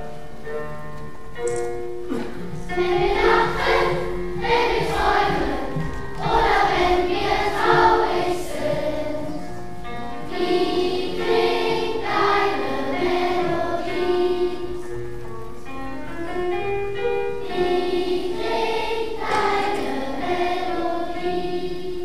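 A children's choir sings a song over a steady instrumental backing, in sung phrases with short breaks between them.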